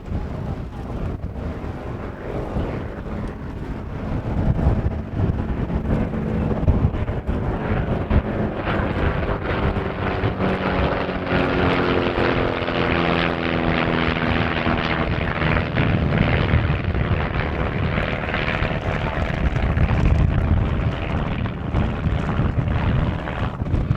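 Propeller-driven aerobatic biplanes flying a display, the engine drone building in the middle seconds with its pitch bending as the aircraft pass, over a constant low rumble of wind on the microphone.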